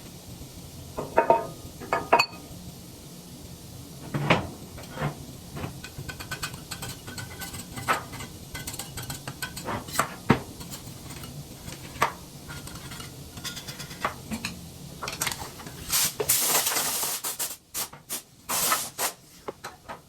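Steel parts and hand tools clinking and knocking against each other while a wood chipper's anvil is worked on and cleaned, with a few hissing bursts near the end.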